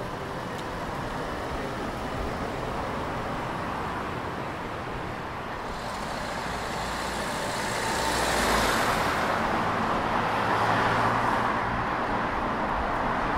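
Urban road traffic: cars running past on a city street. About two-thirds of the way in, one vehicle swells up louder as it passes close, followed by a low engine hum.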